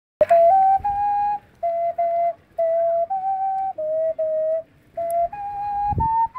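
A flute playing a slow melody of held notes in short phrases, each a few notes long, with brief pauses between them. A low thump sounds near the end.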